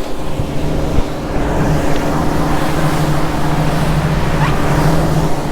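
Boat engine running steadily with a low, even hum, over wind and water noise.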